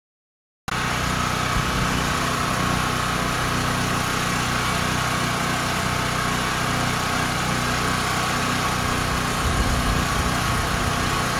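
Small gasoline engine of a portable generator running at a steady speed, a constant drone with a high whine over it. It cuts in suddenly under a second in.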